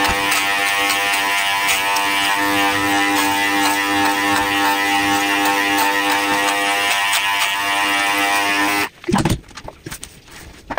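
Electric pet grooming clippers running with a steady buzzing hum as they shave through a Shih Tzu's long coat, switching off suddenly about nine seconds in. A soft thump and a few light clicks and rustles follow.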